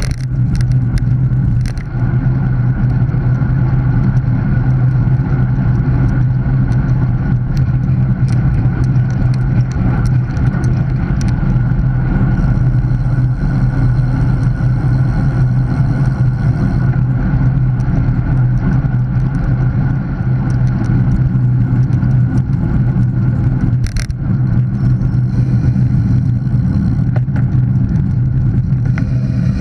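Steady wind and road noise from a road bike rolling along asphalt, heard through a handlebar-mounted action camera, with a low continuous hum and a few sharp knocks near the start and again about 24 seconds in.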